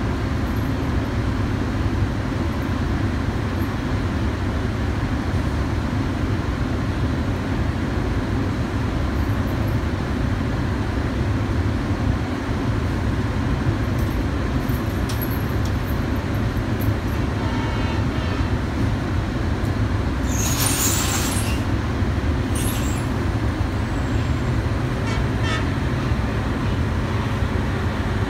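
Bangladesh Railway intercity passenger coaches rolling past on the track, a steady deep rumble throughout. Two short high hisses come about two-thirds of the way through.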